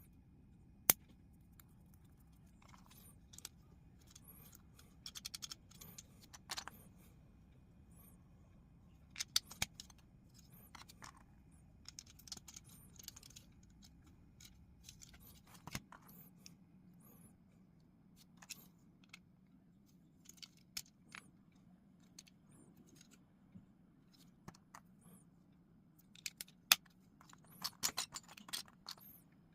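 Plastic LEGO bricks being handled and pressed together: irregular sharp clicks and small clatters of loose pieces. The loudest click comes about a second in, and clusters of clicks and rattling come near the end.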